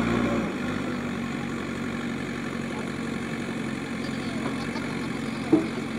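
JCB backhoe loader's diesel engine idling steadily, with a single sharp knock near the end.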